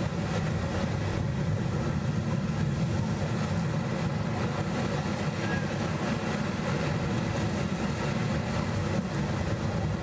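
Surf washing in over and around shore rocks: a steady low rumble with no single crash standing out.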